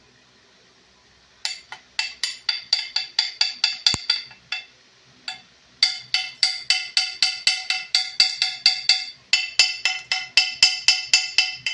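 Hammer tapping quickly on a rusty steel brake pad bracket to knock the rust off, each blow ringing metallically. The taps come about four or five a second in three runs, starting about a second and a half in, with short breaks around four and nine seconds in.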